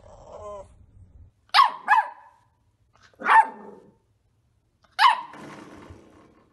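A small dog barking: four sharp barks, two in quick succession about one and a half seconds in, then single barks about three and five seconds in.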